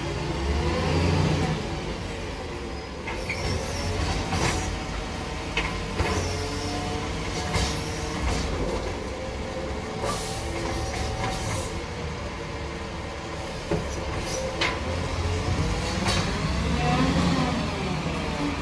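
Volvo side-loader garbage truck's diesel engine running as the truck drives slowly and turns, its pitch rising and falling. There are several short knocks and a hiss about ten seconds in.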